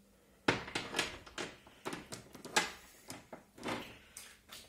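TMMP motorcycle roller chain with freshly crimped links rattling and clinking as it is handled and flexed in the hand on the workbench: a run of irregular metallic clicks starting about half a second in.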